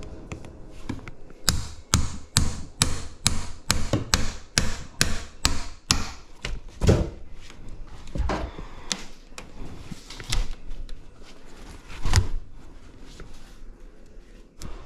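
Hammering: a quick run of blows, about three a second for roughly four seconds, then a few heavier, scattered knocks.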